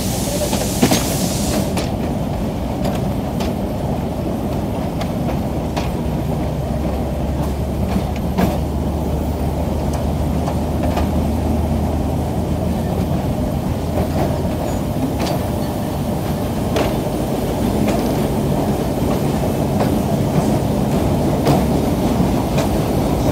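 Pakistan Railways GEU-20 diesel-electric locomotive hauling a passenger train: a steady engine drone with a low hum, strongest through the middle, and scattered clicks of the wheels on the track. A brief hiss near the start.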